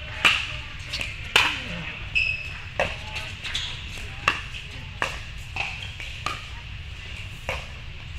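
Pickleball paddles hitting a hard plastic ball in a rally: a steady series of sharp pops, about one to two a second.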